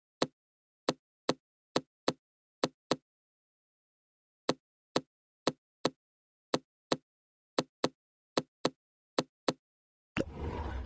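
Items being set down while restocking a fridge: a run of sharp, short knocks, mostly in pairs, with dead silence between them, then about a second of noisy rustling near the end.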